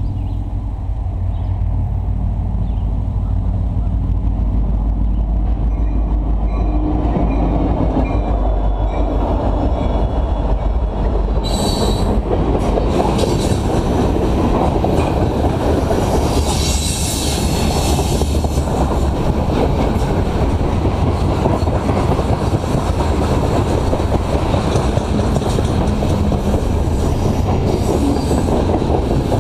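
Freight train cars rolling past close by: a steady heavy rumble of steel wheels on the rails, with clickety-clack and short spells of high-pitched wheel squeal.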